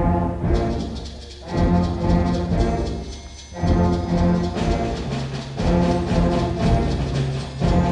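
Concert band playing, wind and brass chords with drums, in loud phrases that swell and fade every second or two.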